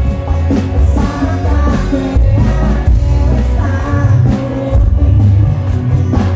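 Live dangdut koplo band playing through a festival PA: a male singer over guitars, heavy bass and a steady beat.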